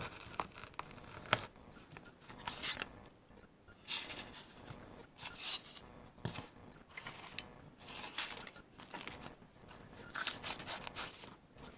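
Small knife blade cutting and scraping along the edge of a thin fruit-crate wood board: a string of short, irregular rasping strokes with brief pauses between them.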